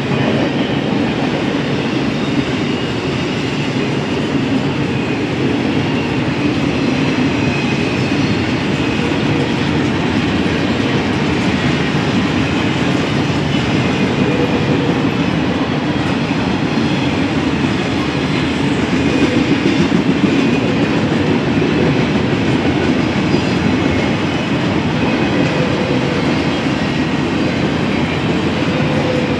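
Double-stack container train rolling past, its well cars' wheels on the rail making a steady rumble and clatter.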